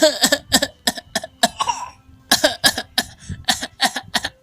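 A small child giving quick runs of short, forced coughs, imitating an adult's cough, with a brief pause about two seconds in.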